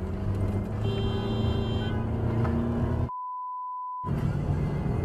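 Steady road and engine noise heard from inside a car in slow highway traffic, with a brief high tone about a second in. About three seconds in, all other sound drops out for a single one-second 1 kHz censor bleep, then the road noise returns.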